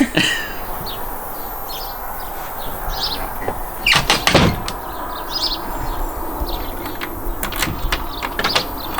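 A door shutting with a loud clatter of knocks about four seconds in, and lighter knocks near the end, over a steady outdoor hiss with short high chirps now and then.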